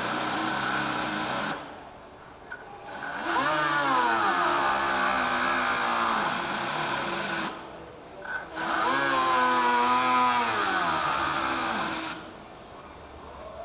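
Handheld air tool working a metal body panel, in three runs with short pauses between. Its whine sags and climbs in pitch as it runs.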